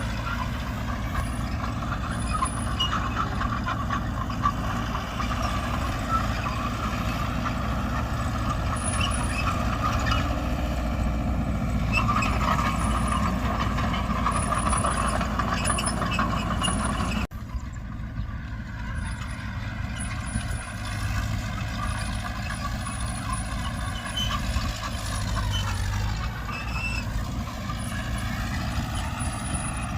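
Diesel engines of heavy earthmoving machinery, a bulldozer and dump truck, running under load. The sound breaks off abruptly about seventeen seconds in, then resumes, and the engine pitch dips and climbs again a little later.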